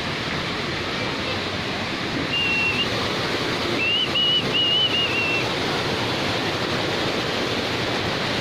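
Steady rush of a waterfall. A thin high whistle sounds briefly about two seconds in, then a wavering run of short whistled notes around four to five seconds in.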